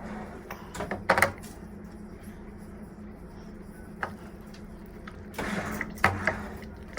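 A few short clicks and knocks from things being handled, the loudest about a second in, with a brief rustle about five and a half seconds in, over a steady low hum.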